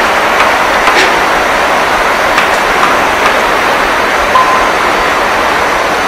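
Loud steady hiss of noise with a few faint clicks, and a brief steady tone about four and a half seconds in.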